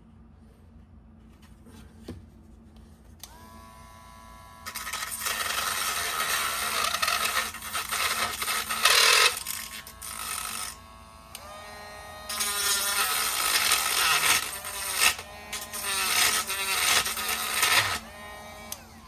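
Dremel rotary tool with a small grinding stone running at high speed with a steady whine, starting about three seconds in. It grinds loudly in two long passes of about five seconds each, cutting the remains of a broken plastic smokestack out of its mounting hole, and idles in between.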